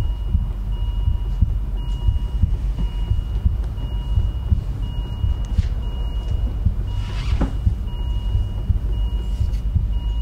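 A low rumbling throb under steady electronic beeping tones from a hospital patient monitor. A single breathy whoosh comes about seven seconds in.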